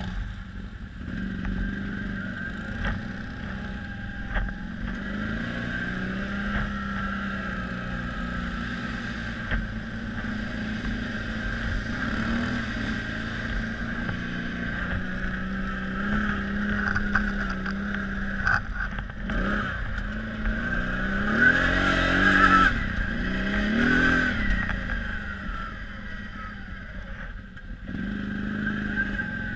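Quadzilla X8 quad bike's V-twin engine running under way, with the revs rising and falling several times about two-thirds of the way through, the loudest part.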